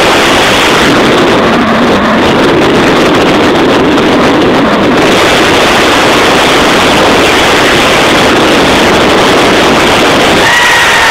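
Loud, steady wind rush buffeting the microphone of a car driving fast down a hill with its windows open, mixed with road and engine noise.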